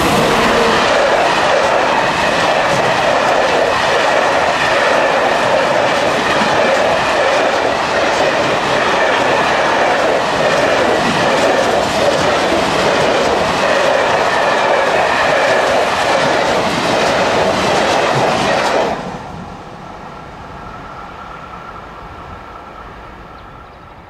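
SNCF BB 22200 electric locomotive and its train of flat wagons passing close by at speed: loud rolling noise with the clatter of wagon wheels on the rails. About 19 seconds in the loud noise cuts off sharply, leaving a much quieter distant rumble.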